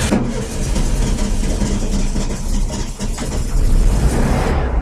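A car engine running steadily at idle.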